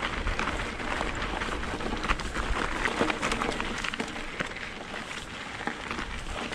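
Mountain bike rolling over a dirt and gravel trail: tyre crunch and a dense run of small clicks and rattles from the bike, over a low rumble of wind on the microphone.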